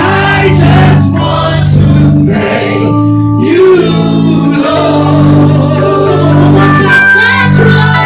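Gospel music with a choir or congregation singing over sustained organ chords and a steady bass.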